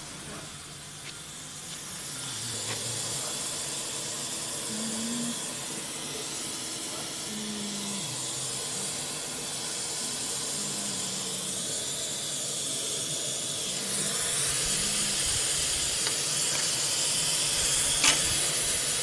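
Steady hiss of a CNC router's mist cooling spray as the machine cuts aluminium sheet, growing louder about two seconds in and again near fourteen seconds. A sharp click comes near the end.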